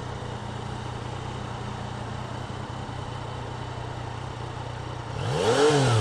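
Yamaha XSR900's 850 cc inline three-cylinder engine running at a steady note. About five seconds in, the throttle is blipped, and the revs rise and fall back.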